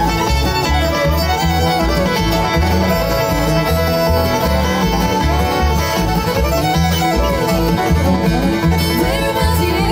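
Bluegrass band playing an instrumental passage: banjo, fiddle and guitar over an even bass beat, with sliding fiddle lines.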